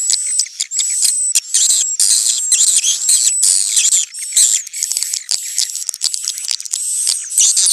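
Swiftlets twittering in a dense, unbroken stream of high-pitched chirps and trills mixed with rapid clicks. This is the swiftlet courtship ('birahi') call.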